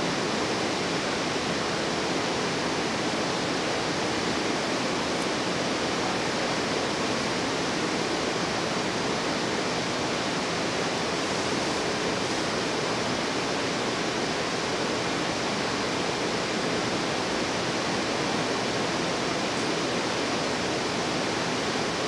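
A steady, even hiss that does not change, with no separate knocks, tones or other events.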